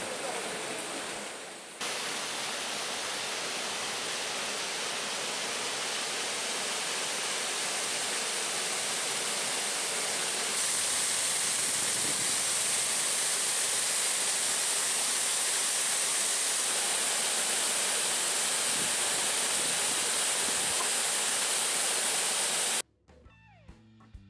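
Water rushing along a wooden flume and pouring off its end, a steady rush that gets louder and brighter about ten seconds in. Near the end it cuts off abruptly and music begins.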